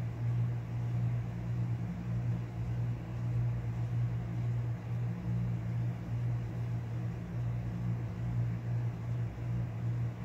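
Steady low mechanical hum with a slight waver in strength.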